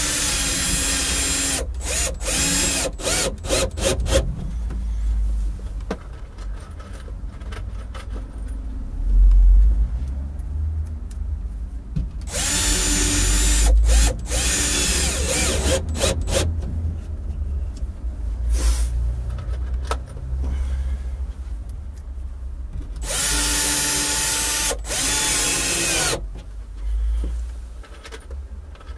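Cordless drill-driver driving plasterboard screws through plasterboard into a timber batten behind, pulling the board tight to the wood. It runs in several separate bursts of motor whine, with short trigger blips in between.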